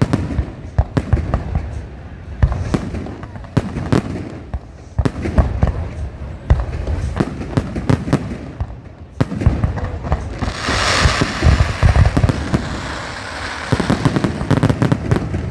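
Fireworks display: a rapid, irregular run of sharp bangs from bursting shells, with a dense hissing crackle from about ten seconds in that lasts a couple of seconds.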